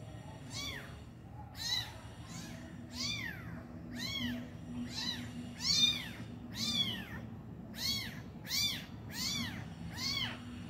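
Young kitten mewing over and over: about a dozen high cries, each rising then falling in pitch, roughly one a second.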